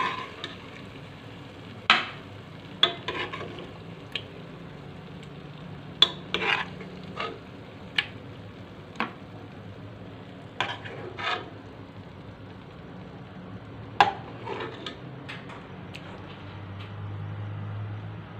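Metal spoon scraping and clinking against a metal cooking pot as thick cauliflower-and-meat curry is stirred and scooped out, in irregular sharp strokes every second or so over a steady low hiss.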